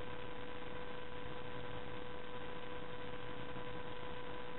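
Steady electrical hum with a constant hiss from the recording equipment, level and unchanging, with no other sound above it.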